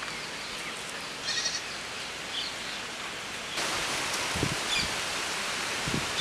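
Outdoor background hiss with a brief high animal call about a second in and a small chirp after it. Just past halfway the hiss gets louder and a few soft, dull knocks come as a knife works the jaggery and dal filling out of the roasted coconut shell.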